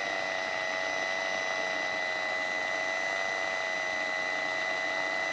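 Small electric motor of a G scale locomotive bell actuator running steadily, a constant whine with a thin high tone above it, as it swings the model bell back and forth.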